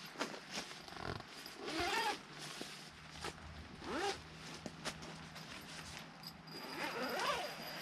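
A zipper pulled in several short strokes, each sweeping up and down in pitch, with scattered clicks and handling noise between them.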